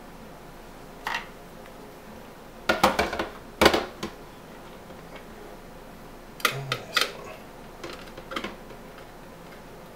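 Scattered metallic clicks and clanks from a sheet-steel computer drive cage and its screws being handled, with the loudest knocks about three and a half seconds in and another cluster near seven seconds.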